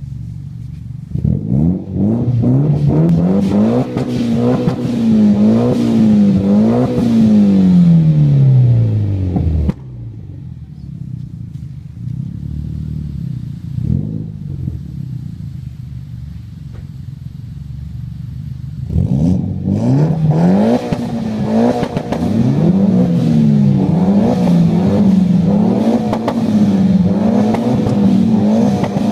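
Mitsubishi Lancer Evolution X's turbocharged four-cylinder engine, breathing through an aftermarket catback exhaust, revved repeatedly in rising and falling blips. About ten seconds in it drops abruptly to a steady idle. About nineteen seconds in, the quick blips start again.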